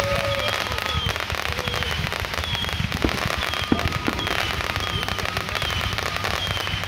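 Consumer firework cake firing continuously: a steady stream of launches and crackling, with two sharper reports about halfway through.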